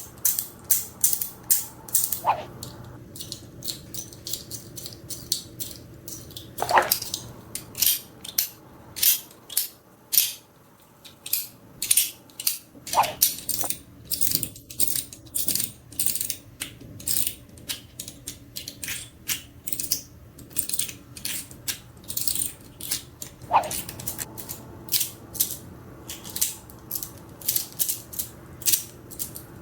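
Fidget toys being clicked and snapped: a fast, irregular run of sharp clicks, several a second, with a few brief ringing notes that drop in pitch.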